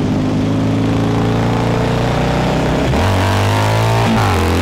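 Cafe-racer motorcycle engine accelerating hard through the gears: the pitch climbs steadily, drops at an upshift about three seconds in, climbs again and drops at a second shift just after four seconds.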